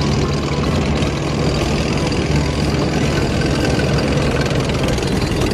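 Tank engine sound effect running steadily: an even engine noise with a low hum underneath.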